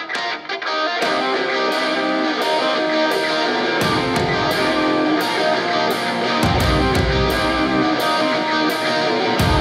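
Background guitar music, with a steady cymbal beat from about a second in and heavy bass entering partway through.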